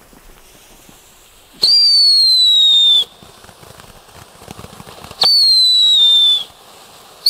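Junior Chico whistling ground fountains going off, giving two loud whistles of about a second and a half each. Each whistle sets in sharply and slides slightly lower in pitch before cutting off.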